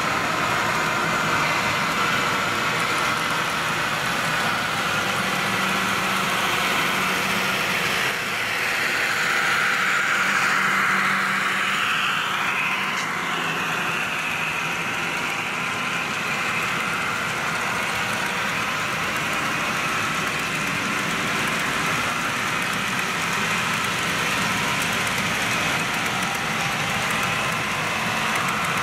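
HO-scale model diesel locomotives running with a train, giving a steady engine-like drone. A brief wavering higher tone comes about twelve seconds in.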